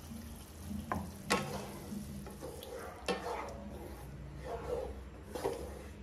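Wooden spatula stirring and scraping a thin masala gravy in a kadai over the gas flame, with a few sharper knocks of the spatula against the pan, and a light sizzle from the fried masala, which has just had water added.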